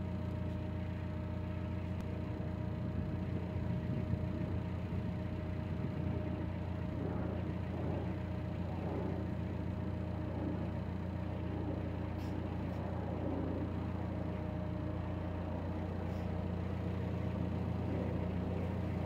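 A narrowboat's diesel engine running steadily at cruising speed, a constant low drone.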